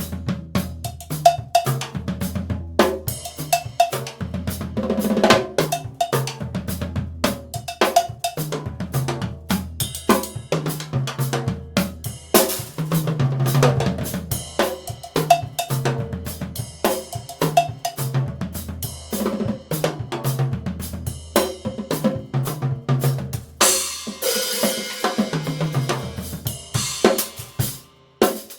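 Drum kit played in busy grooves and fills: Yamaha toms, snare and bass drum struck in rapid succession. Near the end the cymbals ring out for a few seconds.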